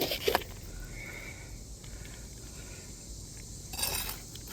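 Quiet outdoor background with a steady high hiss, a faint click at the start and a brief scraping rustle about three-quarters of the way through, during shingle removal on a roof.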